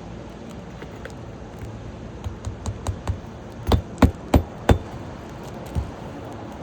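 Hammer striking roofing nails into an asphalt shingle: a few light taps, then four hard blows about a third of a second apart, and one more blow about a second later.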